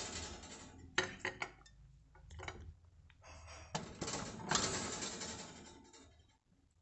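Metal fork clinking and scraping against an aluminium roasting pan as roasted pork ribs are lifted out, with a few sharp clinks about a second in and longer scraping stretches.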